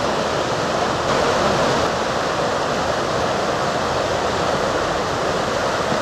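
The Beas river rushing over rocks through shallow rapids: a steady, unbroken sound of white water.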